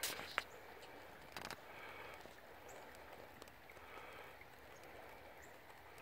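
Faint creek-side outdoor ambience, a low steady rush of moving water. A few short knocks come in the first second and a half, and a few faint high chirps are scattered through.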